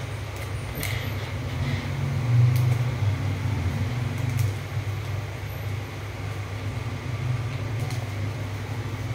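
A steady low hum of a fan or motor, with a few light clicks of a spoon against the pan in the first two seconds.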